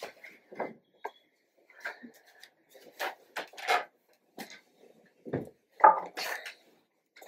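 Irregular rustling and soft knocks of someone getting into a wooden bed and pulling a blanket over themselves, the loudest rustles about six seconds in.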